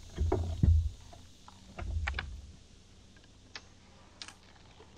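Irregular small clicks and knocks of a fishing rod and reel being handled and cranked, with a couple of short spells of dull low thumps in the first half.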